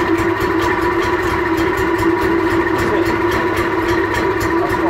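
Vire two-stroke marine inboard engine, warm and just caught on a pull-cord start, running steadily at an even speed.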